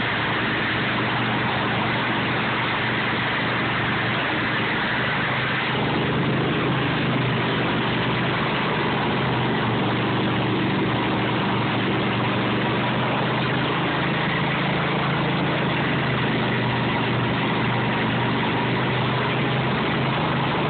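Petrol snowblower engine running steadily under load as the machine throws snow out of its discharge chute, the engine note shifting slightly about six seconds in.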